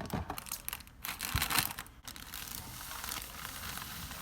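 Cake-mix packaging being handled: crinkling and rustling with a few clicks, loudest about a second and a half in, then settling to a soft steady hiss.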